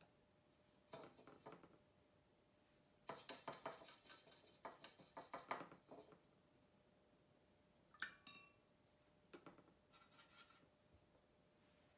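Watercolour painting tools clinking against glass and ceramic in four quiet bursts of small clinks and rattles, the busiest lasting about three seconds.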